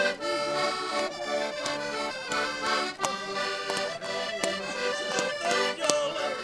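Concertinas playing a lively traditional Portuguese folk tune, an instrumental passage between sung verses, with a few sharp clicks over the music.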